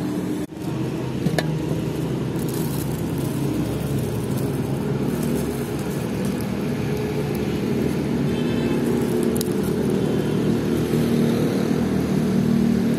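Steady low engine rumble, with a few brief clicks and short rustles over it.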